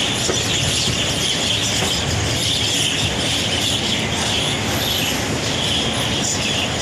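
Express passenger train rolling slowly along a station platform, heard from the carriage doorway: a steady rumble of the coaches with a high wheel squeal that swells and fades.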